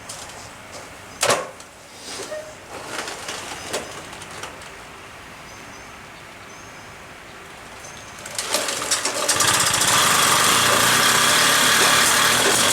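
A few knocks, the loudest about a second in, then the Motobecane moped's small two-stroke engine catches about eight and a half seconds in and runs steadily. This is its first start after reassembly and a carburettor rebuild, and it fires right away.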